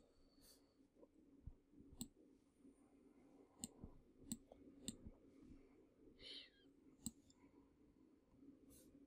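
Faint, scattered computer mouse clicks, about half a dozen, spaced irregularly over a low steady hum. A brief soft rustle comes a little over six seconds in.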